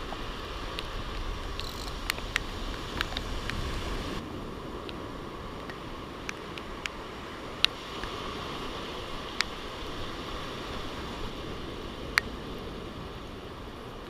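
Steady wash of breaking surf and wind, muffled through a waterproof camera housing, with scattered sharp ticks at irregular times.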